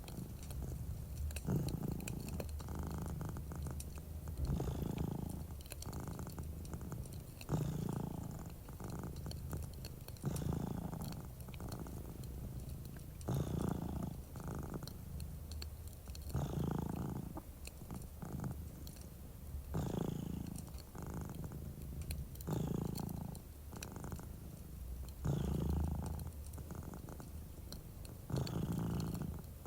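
Domestic cat purring close up, a steady rumble that swells and eases about every three seconds with its breathing. Faint crackles from a wood fire run underneath.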